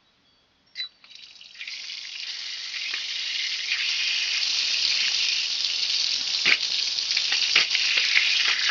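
Water hissing out of a newly fitted boiler drain hose bib as its multi-turn handle is opened, growing louder over the first few seconds and then running steadily. A short click comes just before the water starts.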